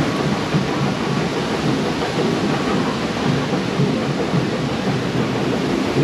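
Steady rushing and churning of river-ride water around a circular raft.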